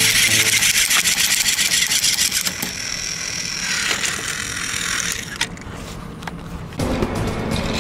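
Battery-powered Plarail Thomas toy train running along a wooden tabletop: its small electric motor and gears whir with a fast ticking. The sound drops quieter about two-thirds of the way through, and a lower rumble picks up near the end.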